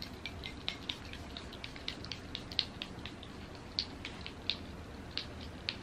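Faint, irregular light clicks and ticks, several a second, from a small glass perfume bottle being handled.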